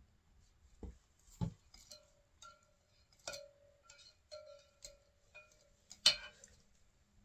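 Kitchen utensils clinking against mixing containers: a wire whisk tapping in a glass measuring cup of soap batter. Several light taps, a few of them ringing briefly, then a louder clack about six seconds in.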